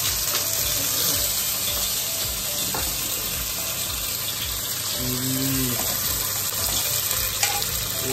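Steady hiss of oil heating in a frying pan on the hob, with a brief low hum about five seconds in.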